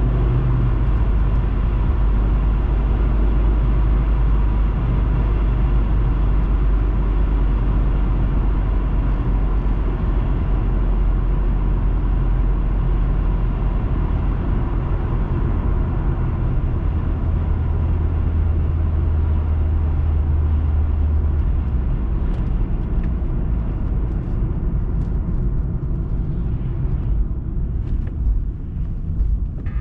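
Car driving, a steady low rumble of engine and road noise as picked up by a dashcam. The deepest part of the rumble eases after about twenty seconds, and a few faint short clicks come in near the end.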